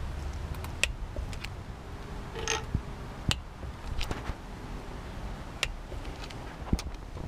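Scattered sharp metallic clicks from a torque wrench on the cylinder head bolts of a Sea-Doo 4-TEC 1503 engine, as the bolts are tightened in the first torque stage. A short rasping sound comes about two and a half seconds in.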